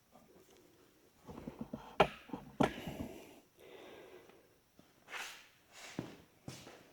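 Handling noises from work on a tractor engine block: short rattles and two sharp metallic knocks about two seconds in, followed by soft hissing swells like heavy breathing.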